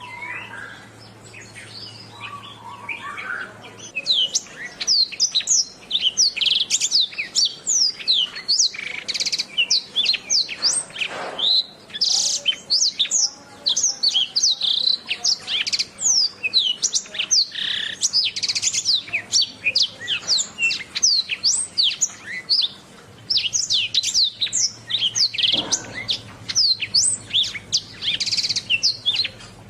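Domestic canary singing a long, fast song of rapid whistled sweeps and trills, sparser for about the first four seconds and then dense and unbroken.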